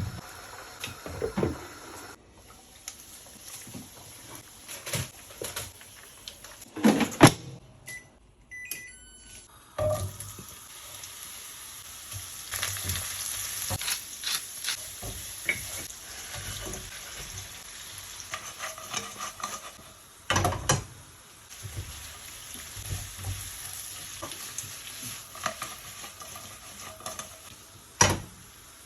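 Pieces of pork frying in hot oil, a steady sizzle that grows fuller partway through, with several sharp knocks of a utensil against the pan.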